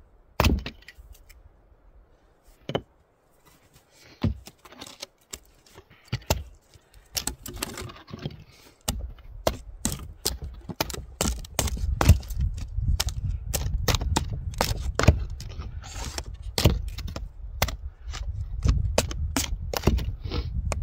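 Irregular sharp knocks and clatters, sparse at first and coming thick and fast from about halfway, over a low rumble.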